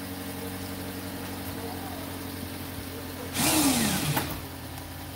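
Steady low engine hum. About three seconds in, a power drill runs for under a second, its whine sweeping down and back up, tightening a fastener.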